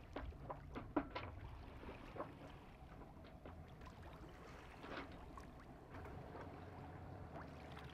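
Faint water lapping and splashing against the hull of a sailboat underway: a scatter of small slaps and trickles, the sharpest about a second in.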